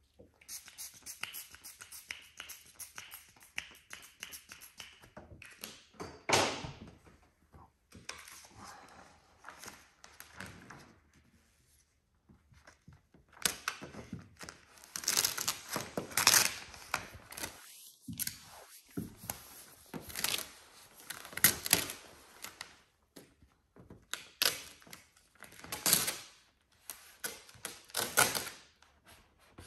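Matte black vinyl hood decal being lifted from the paint and pressed and wiped down with a microfiber towel. It makes irregular peeling, crinkling and rubbing strokes, with short pauses between them.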